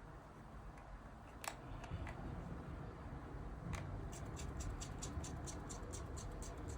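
Faint light clicks of a small precision screwdriver and the phone being handled: a few separate clicks, then from about two thirds of the way in a quick run of light ticks at about four or five a second.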